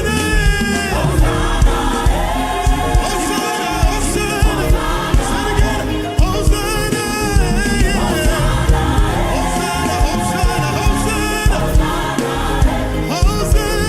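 Live gospel worship music: a choir singing a chant in held, sliding lines over a band with a steady drumbeat.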